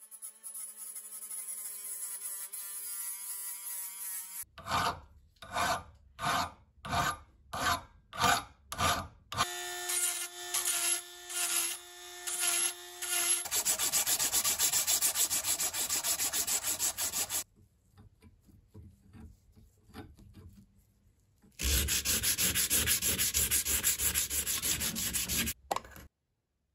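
A welded steel nail-puller tube is being abraded. First a small cordless power sander whines steadily against the metal. Then come about nine separate rubbing strokes, roughly two a second, followed by longer continuous rubbing of abrasive paper on the steel, a short lull, and a last stretch of steady rubbing.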